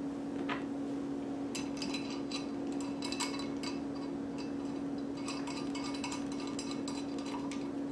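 Light metallic clicks and clinks of a steel bolt, nut and washer being handled and threaded as a top plate is fitted to a cast-iron reloading press, coming in small scattered clusters. A steady low hum runs underneath.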